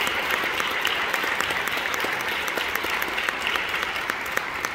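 Audience applause: dense, steady clapping from many hands, easing off slightly toward the end.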